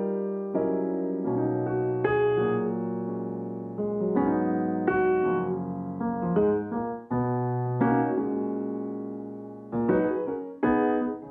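Background piano music: a gentle tune of single notes and chords, each struck and left to fade.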